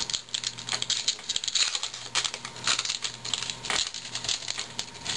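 2011 Topps baseball card pack wrapper being torn open and crinkled in the hands: an irregular run of crackles and rustles, with a few sharper crackles along the way.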